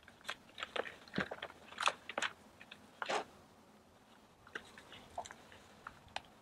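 Paper crackling and rustling as a notebook and loose sheets are handled and written in: a dense run of irregular crackles for the first three seconds or so, then a few scattered ticks.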